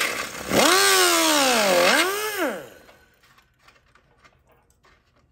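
Air-powered cut-off tool with a small abrasive wheel whining up to speed with an air hiss, its pitch sagging and recovering as the wheel bites into leftover plastic tabs on a truck grille. It winds down after about two seconds, leaving only faint handling clicks.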